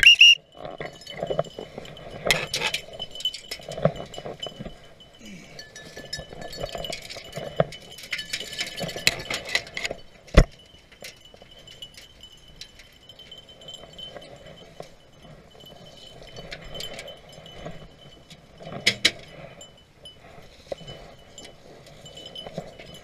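Light metallic jingling and clinking on and off, with one sharp knock about ten seconds in.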